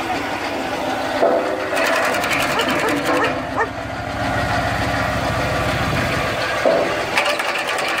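Tractor engine running at a steady speed to drive a PTO-powered branch cutter, a fast, even mechanical beat throughout.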